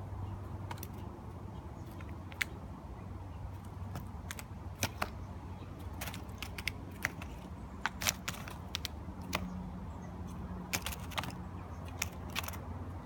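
Irregular sharp clicks and taps as Steller's jays pick up peanuts in the shell, over a steady low hum.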